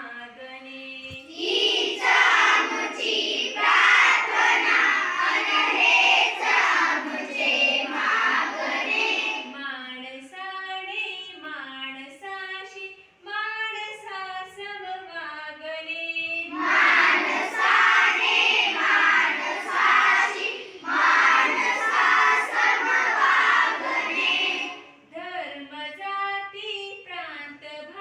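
A class of schoolchildren singing a song together in unison. This alternates with stretches where a single voice sings lines on its own, call-and-response fashion: the class sings twice, with the solo line between and after.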